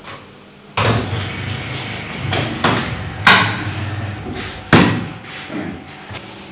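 A steady low hum starts about a second in, with three sharp knocks over it, the last two the loudest.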